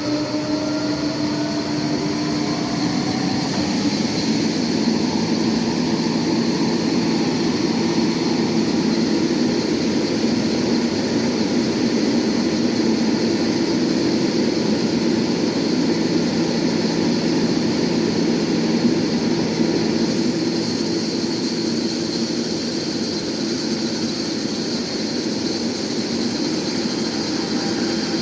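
Sawmill machinery running, a loud steady mechanical drone that starts suddenly, with a faint rising whine in the first few seconds as it comes up to speed. A high hiss grows louder about two-thirds of the way through.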